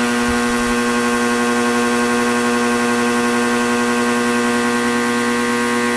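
Countertop vacuum sealer's pump running, a steady pitched hum while it draws the air out of a bag and pulls the moisture toward the machine.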